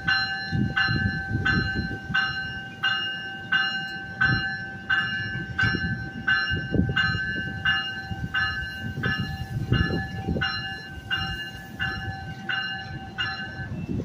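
A passing NJ Transit commuter train's electronic warning bell ringing evenly, a little under two strokes a second, with a steady high tone under it, over the low rumble of the rolling bilevel coaches. The bell stops shortly before the end.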